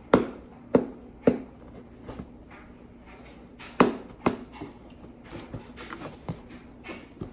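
Sharp taps and knocks, several loud ones spaced unevenly with softer clicks between, as a mailed package is picked open by hand.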